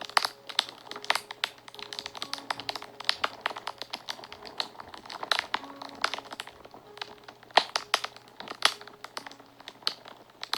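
Wood fire crackling and popping, a dense run of irregular sharp pops and snaps, over soft background music with a few held notes.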